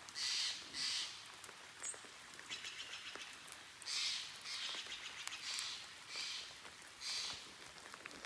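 Footsteps crunching through dry leaves or brush: two steps at the start, then five more at a slow, uneven walking pace from about four seconds in, faint.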